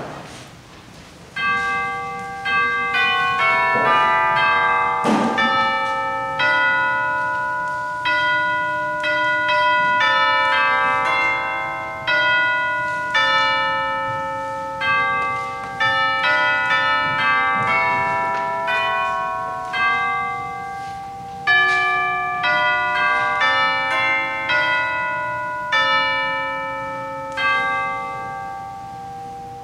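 Bells playing a slow melody, one struck note after another, each note ringing on under the next, with a short break in the tune about two-thirds of the way through.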